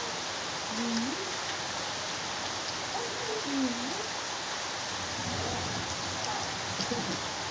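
Steady heavy rain falling on foliage and ground. A few faint, short sliding tones sound in the background, about a second in and again around three seconds in.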